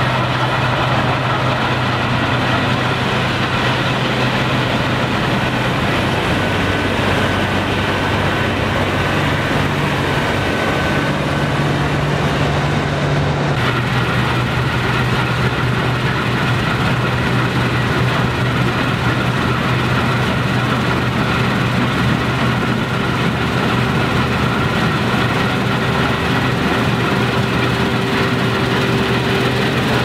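Claas Lexion 760TT combine harvester running under load while cutting wheat: a steady engine hum with the noise of the header and threshing machinery. The sound shifts abruptly about halfway through, as the machine is heard from a different spot.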